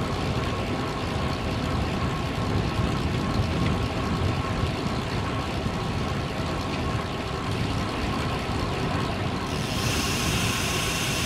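Steady wind rush and road noise from riding a bicycle on a road, with a bright hiss that joins about nine and a half seconds in.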